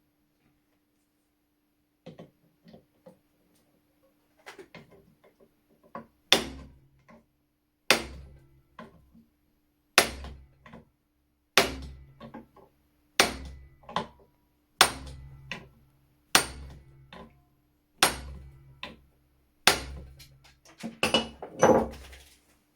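Hammer striking a punch to drive out a rust-seized screw in an old flintlock shotgun, with each blow giving a metallic knock over a dull thud. A few light taps come first, then nine heavy, evenly spaced blows about every second and a half, then a quick run of lighter blows near the end.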